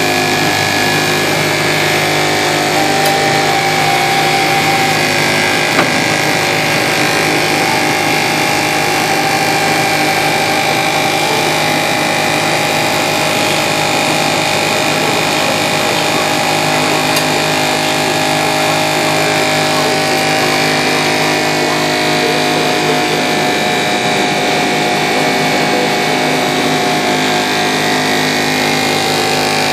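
An automatic egg washer's 12-volt DC pump running with a steady hum, its water jets spraying over the conveyor's brushes.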